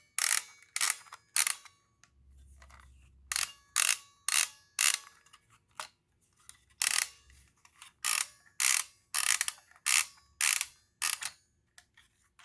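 A sewing-machine monogrammer attachment clicking as its letter template is pulled through to the start mark: sharp clicks about two a second, in three runs with short pauses between.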